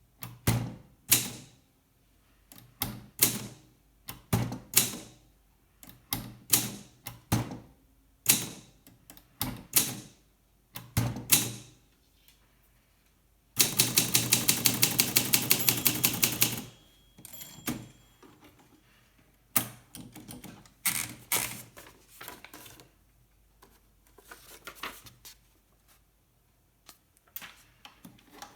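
Olympia SM2 de Luxe portable typewriter being typed on: single key strikes for the first twelve seconds or so, then a fast, even run of strokes for about three seconds in the middle, then lighter, quieter clicks toward the end.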